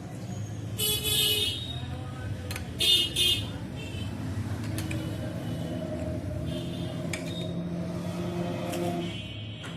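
Busy street traffic: a steady hum of engines with horns sounding sharply twice, about a second in and again about three seconds in.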